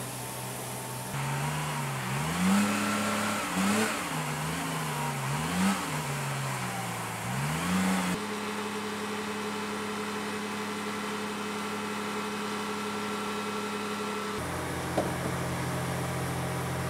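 Diesel engine of a military all-terrain forklift revving up and down several times as it works, then running steadily at a fixed speed, with a single clunk near the end.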